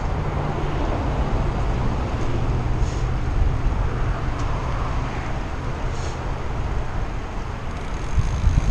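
Steady low rumble of wind on a GoPro microphone and tyres rolling on asphalt while a Trek Domane AL 2 road bike is ridden along a paved trail.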